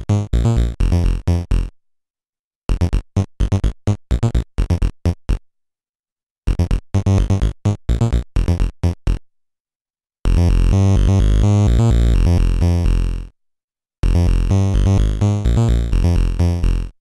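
An OctaMED synth instrument on the Amiga played in runs of short, rapid notes, each dying away quickly under the volume list's change-down fade envelope. About ten seconds in comes a single held note lasting about three seconds, which then drops away.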